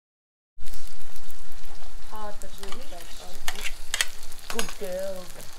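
Food sizzling in hot oil in a wok on a gas burner, stir-fried with a spatula that clicks and scrapes against the metal several times. The sound cuts in suddenly about half a second in, loudest at first.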